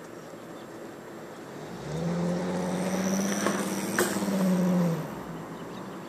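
A motor vehicle driving past: its engine hum swells about two seconds in and fades away about five seconds in, the pitch dropping slightly at the end. A sharp click sounds about four seconds in.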